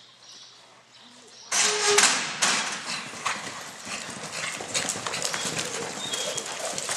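A sudden loud clatter about a second and a half in, then the dense, uneven hoofbeats of horses and a calf galloping on arena dirt.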